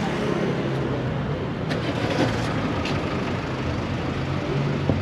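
Road traffic on a city street: a steady low engine hum from motor vehicles over a background rush, with a few faint taps.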